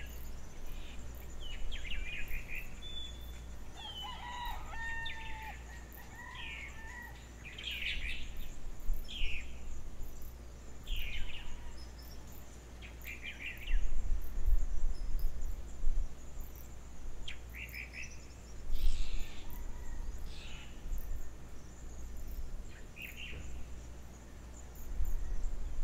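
Morning outdoor field recording: birds chirping and calling in short separate phrases, with a rooster crowing, over a steady low background hum and a few low rumbles midway.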